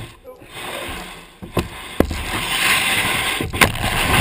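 Kayak hull being dragged over dry ground: a steady scraping and grinding that starts about half a second in and grows louder, with several sharp knocks as the hull bumps over the ground.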